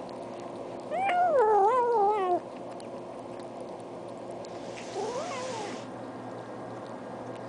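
Domestic cat meowing twice: a long, loud meow with a wavering, falling pitch about a second in, then a shorter, quieter meow that rises and falls about five seconds in.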